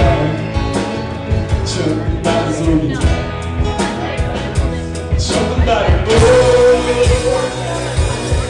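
Live band playing an easy-going country-rock song on acoustic guitar, electric bass and keyboard over a steady beat, with a long held note coming in about six seconds in.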